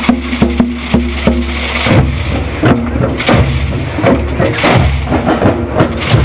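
Rhythmic percussion: a string of sharp wooden-sounding knocks and drum strokes over a steady low hum, evenly spaced for the first two seconds, then looser and busier.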